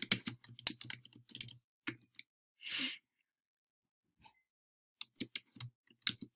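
Typing on a computer keyboard: quick key clicks in a run, a pause of about two seconds, then another run. A short exhale near the middle.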